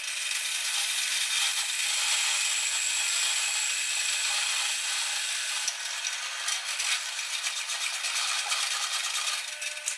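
Drill press spinning a circular saw's motor armature while a hand-held steel blade scrapes against its turning end: a steady metal-on-metal scraping over a faint, even hum, dying away at the very end.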